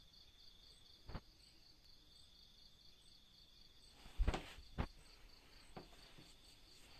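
Faint insects chirping: a steady high trill with a rapid, even pulse, about four to five a second. A few soft knocks about a second in and again around four to five seconds in.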